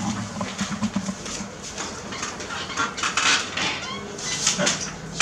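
Light clinking and clattering of small hard objects, many short sharp clicks in a row.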